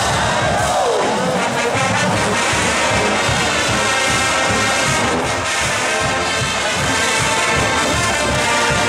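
Marching band brass section of sousaphones, trumpets and trombones playing a loud, steady tune over a regular pounding beat.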